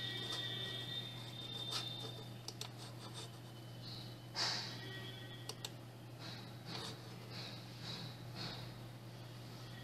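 A few sharp computer mouse clicks over a steady low hum and a faint high-pitched whine from the running computer.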